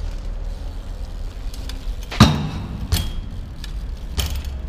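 BMX bike rolling over paving stones with a steady low rumble, then a loud metallic clank about two seconds in that rings briefly, followed by two smaller knocks as the bike hits the ground during a trick.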